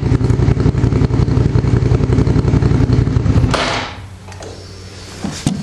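Motorcycle engine running steadily, then cutting out about three and a half seconds in.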